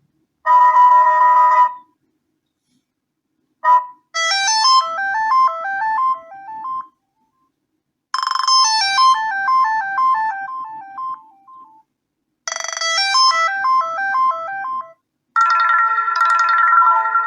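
BQ-5702 Spring smartphone playing a run of its preset ringtones, about five short electronic melodies one after another, each cut off after a few seconds with a brief silence before the next.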